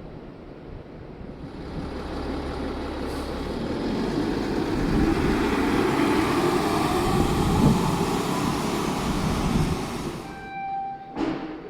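A large vehicle passing close by, its noise swelling over several seconds and falling away about ten seconds in, followed by a short beep near the end.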